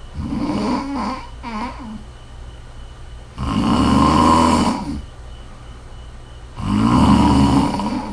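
A woman snoring, with rough, broken sounds in the first two seconds, then two loud snores about three seconds apart, each lasting about a second and a half.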